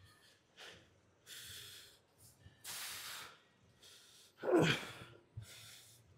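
A man breathing hard through a hard set, in a series of sharp, forceful breaths about once a second. There is a short voiced grunt about four and a half seconds in.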